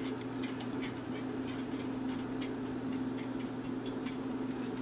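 Light, irregular ticking from a metal pot of melting, caramelising sugar being stirred with a spatula, over a steady low hum.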